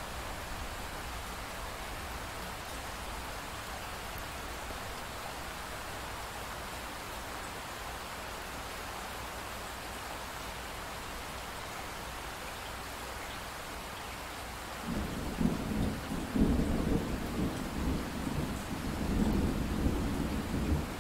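Steady, even hiss like falling rain, joined about fifteen seconds in by a low rumble of thunder that swells and fades unevenly.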